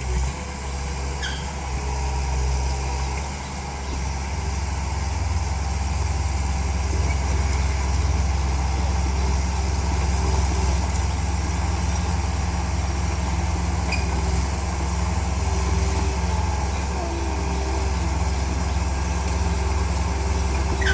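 Komatsu D31P bulldozer's diesel engine running steadily with a deep rumble, dipping slightly about three seconds in.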